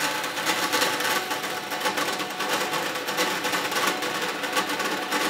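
1950s Grob NS-18 vertical metal-cutting bandsaw, running at low blade speed, cutting 1/8-inch angle stock: a fast, continuous clatter of the teeth biting through the thin metal.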